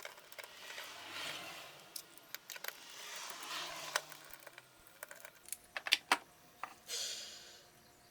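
Metal parts clicking and scraping as the distributor shaft is worked and slid out of its housing. There are several sharp clicks and three longer scraping sounds, about a second in, around three seconds in and near the end.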